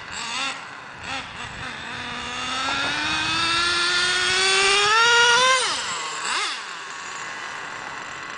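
Traxxas Jato 3.3 nitro RC truck's two-stroke nitro engine. A few short throttle blips, then a long full-throttle run with the pitch climbing steadily for about three and a half seconds, cut off abruptly when the throttle is released, followed by one short blip.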